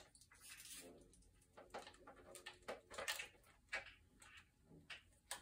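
Faint clicks and plastic handling noises from IV tubing being fitted into an infusion pump.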